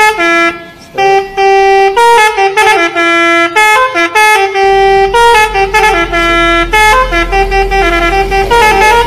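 Telolet Basuri musical bus horn playing a quick melody of stepped notes, several horn tones sounding together. A low rumble joins about halfway through.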